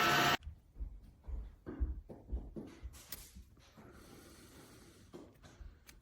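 Tineco Floor One S9 Artist wet-dry floor cleaner running, then cutting off suddenly a moment in. What follows is quiet, with faint scattered knocks and low thumps of handling.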